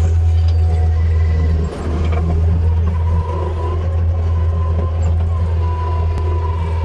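Skid steer's engine running steadily with a heavy low drone, while a thin higher whine rises and fades about three seconds in and again near the end.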